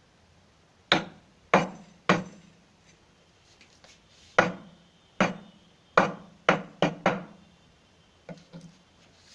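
A stone striking a cardamom pod against a hard surface to crush it: about nine sharp, hard knocks at uneven intervals, then two lighter taps near the end.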